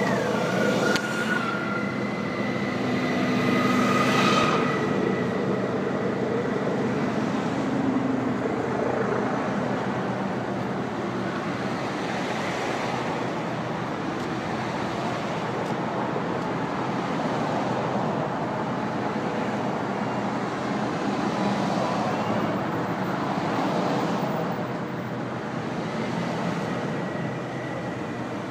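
A motorcade of cars passing on the road, including the US presidential Cadillac limousine and its SUV escorts: a steady stream of engine and tyre noise. A steady high tone sounds over it for the first few seconds.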